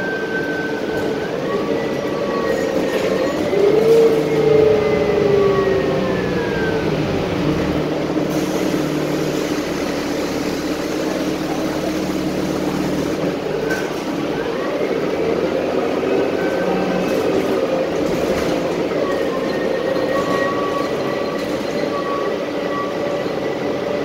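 City transit bus in motion, heard from inside the passenger cabin: steady engine and road noise with a whine that climbs in pitch and falls away a few seconds in, then climbs again midway and holds.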